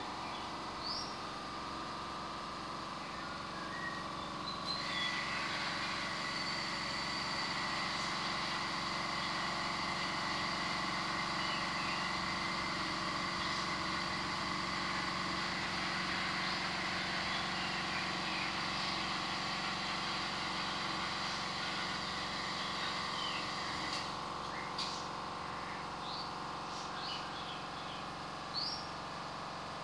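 Birds chirping now and then over a steady background hum. A high, even whine in the hum starts about five seconds in and cuts off suddenly in the last quarter.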